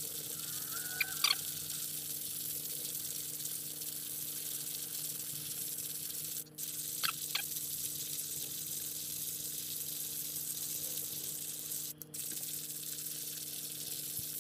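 Stainless steel hand coffee grinder being cranked, grinding coffee beans with a steady hissing grind and a few faint clicks about a second in and about seven seconds in.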